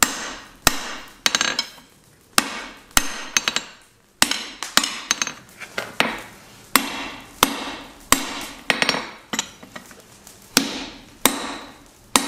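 Hand hammer striking red-hot bar stock laid over a round fuller on an anvil: steady blows about every two-thirds of a second, each with a short metallic ring, as a fuller groove is forged into the bar. The blows pause briefly a little before four seconds in.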